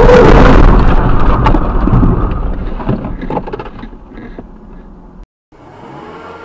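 Car crash: the loud crunching, scraping noise of a collision with scattered knocks and rattles, dying away over about four seconds. After a brief cut it gives way to a quiet, steady in-car hum.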